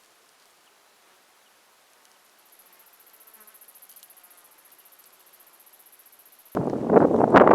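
An insect buzzing faintly with a fast, even pulsing. About six and a half seconds in, a sudden loud rushing noise of wind on the microphone drowns it out.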